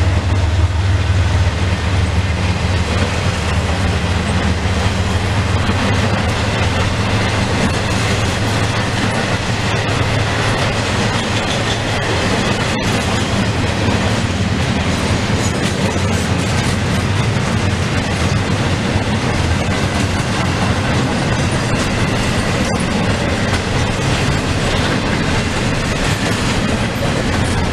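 CSX intermodal freight train's well cars with double-stacked containers rolling past: a loud, steady rumble of steel wheels on the rails that goes on without a break.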